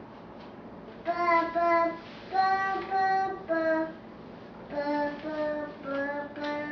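A child singing a slow tune in long held notes, starting about a second in, with a short pause in the middle before the singing resumes.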